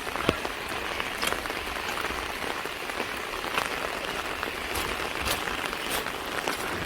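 Steady hiss of water from the rushing valley stream and falling rain, with scattered sharp ticks and a low wind rumble on the microphone.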